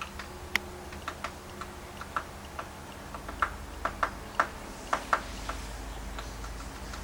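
A bird's short, sharp tick notes, irregularly spaced at about one or two a second, louder in the middle.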